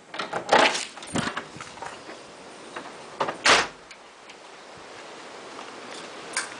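A house door being handled on the way outside: a few knocks and rattles, then one louder bang about three and a half seconds in as the door is shut. A faint steady rush of wind rises afterwards.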